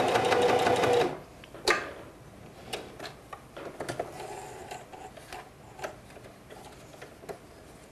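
Singer 4423 heavy-duty sewing machine stitching through five layers of denim with a rapid, even clatter, stopping abruptly about a second in. Then come scattered light clicks and taps, the sharpest shortly after the stop.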